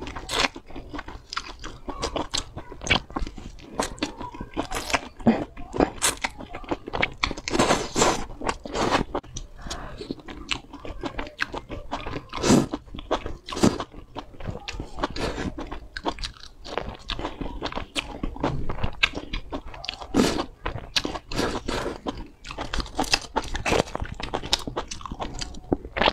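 Close-miked biting and chewing of sauce-coated skewered chili peppers: frequent irregular crunches and mouth noises.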